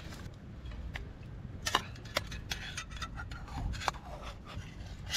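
Scattered light clicks and knocks of cooking utensils and cookware being handled, over a low steady background noise.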